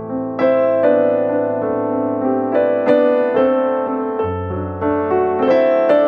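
Background music: a piano piece, a melody of struck notes over held chords, with a deep bass note coming in about four seconds in.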